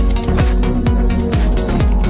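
Electronic dance music with a steady kick drum, a little more than two beats a second.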